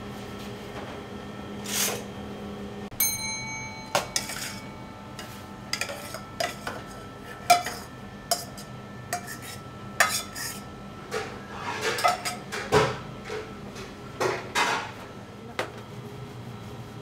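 Dishes and metal cookware clinking and knocking in irregular clatter. About three seconds in, one metal bowl or pan rings briefly after being struck.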